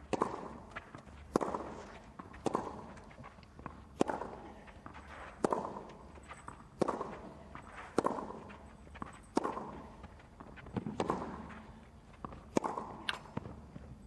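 Tennis rally on a clay court: the ball struck back and forth with racquets, a sharp hit about every second and a half, each echoing briefly around the empty stadium.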